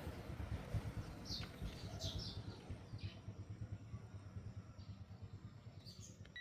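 A few short bird chirps over a low, fluttering rumble that slowly fades.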